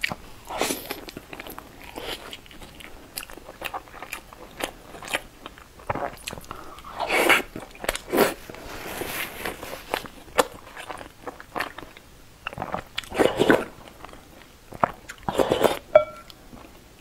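Close-miked eating sounds: a person biting into and chewing fried food soaked in chili sauce, with many small wet mouth clicks and several louder bites and mouthfuls at irregular intervals.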